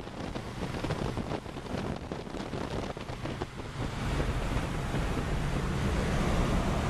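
Wind and road noise inside the cab of a Dodge D250 pickup cruising at about 65 mph, a steady rushing that grows louder about four seconds in.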